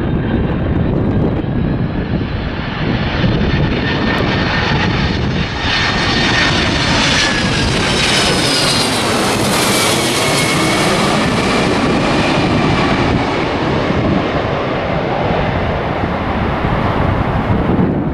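Jet airliner passing close by, a loud steady rush of engine noise with a high turbine whine that falls in pitch about halfway through as the aircraft goes past.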